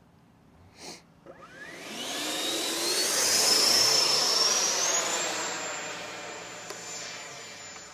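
Electric ducted fan of a Freewing Eurofighter Typhoon RC jet (90 mm, 6S) spooling up to full throttle for takeoff. Its rising whine climbs steeply, then settles into a steady high whine that slowly fades as the jet gets farther away.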